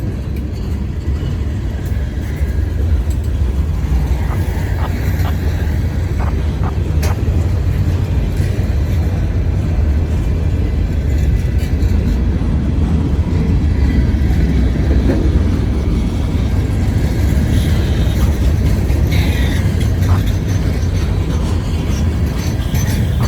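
Long freight train rolling past: a steady low rumble of steel wheels on rail, with a few faint clicks and knocks about four to seven seconds in.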